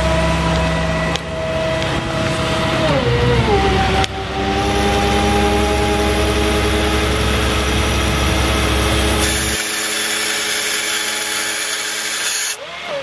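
6.6 L Duramax diesel running at PTO high idle, driving the rollback's hydraulic pump, which whines steadily. The whine drops in pitch about three seconds in as the hydraulic load changes. A low rumble falls away about ten seconds in, and the pitch shifts again just before the end.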